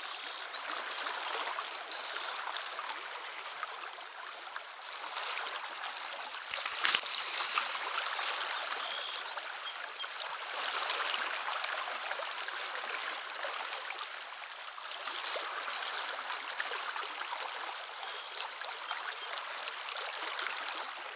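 River current rushing steadily around a wading angler, with small scattered splashes; a louder sharp sound about seven seconds in.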